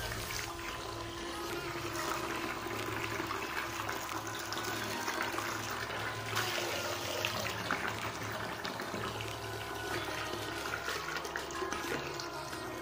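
Steady splashing and gushing of water from a homemade DC water pump, an old air-cooler pump driven by a 775 DC motor. The jet sprays from a hose end partly blocked by a thumb and falls back into a tub of water.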